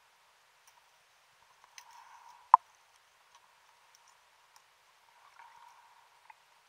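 Underwater sound picked up through a diver's camera housing: faint scattered clicks and two short soft hisses, with one sharp click about two and a half seconds in.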